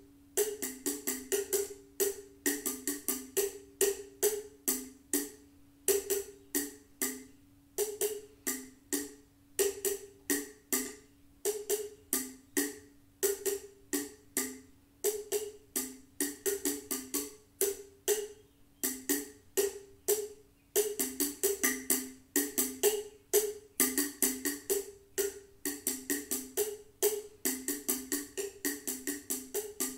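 Rapid, rhythmic hand-percussion strikes, about three or four a second with brief pauses, over the steady ringing tone of a Tibetan singing bowl.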